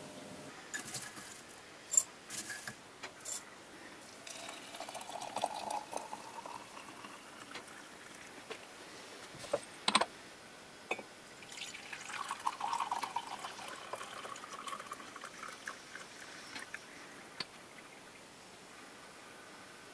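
Tea being made: a few light clinks, water pouring, a porcelain teapot lid clinking into place about halfway through, then a longer pour of tea into a ceramic mug.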